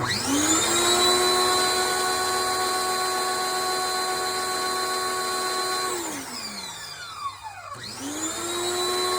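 Pressure washer motor spinning up to a steady whine with the spray hissing, running for about six seconds before winding down, then spinning up again near the end.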